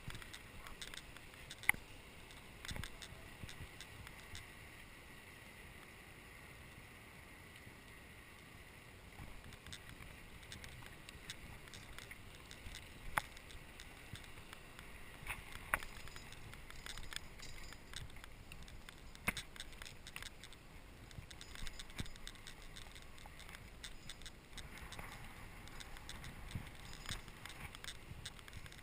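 Faint steady hiss with scattered sharp clicks and knocks from a bicycle being ridden.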